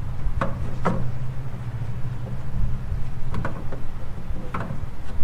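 A handful of sharp plastic clicks and knocks as a hand works at the headlight bulb covers and connectors behind a pickup's headlight housing, over a steady low hum.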